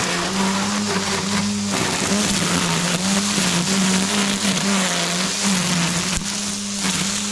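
A high-speed power tool's motor running steadily, its pitch dipping and recovering slightly as it takes load, with a loud hissing, grinding noise over it.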